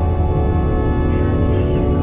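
Slow ambient music of long held tones over the steady low rumble of a running train.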